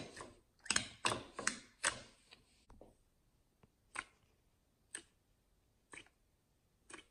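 Thick, clear shampoo-and-dish-soap slime being poked and squished by fingers in a container, making faint sticky clicks and pops: a quick cluster in the first two seconds, then single clicks about once a second.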